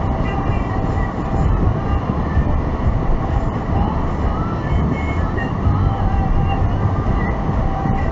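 Steady low rumble of a car's road and engine noise heard inside the cabin while driving, with faint short squeaks here and there.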